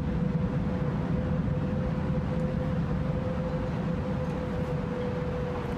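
Steady, low city background rumble with a constant mid-pitched hum running through it.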